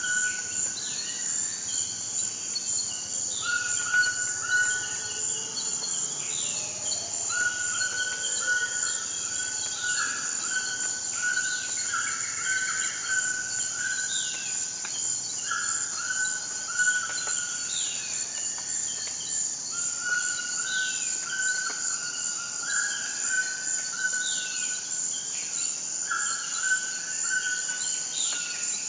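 A steady, high-pitched insect drone with birds calling over it: repeated short whistled notes and quick falling chirps.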